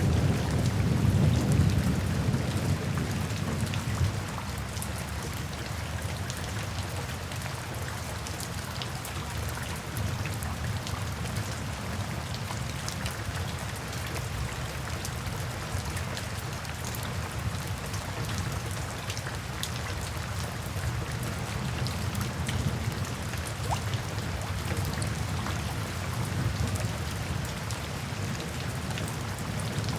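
Steady, heavy rain falling, with a dense patter of drops; a low thunder rumble fades away over the first few seconds.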